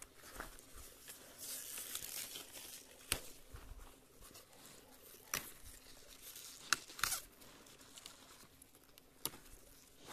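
Leaves rustling and crisp snaps as tender flowering stalks of leafy greens are broken off by hand. There are about five sharp snaps a second or two apart, with a soft rustle of leaves between them.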